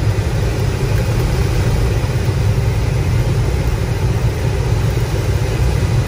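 Air rushing over a sailplane's cockpit canopy in flight, a steady low rumble.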